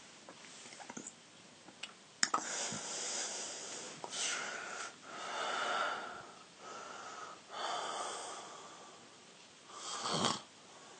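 A teenage boy snoring in his sleep: about six long, noisy breaths in and out with short pauses between them, beginning just after a sharp click about two seconds in.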